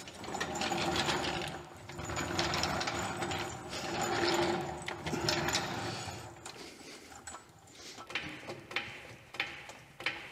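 A mechanical rattling that swells and fades in three slow strokes of about two seconds each, followed by lighter scattered clicks and knocks.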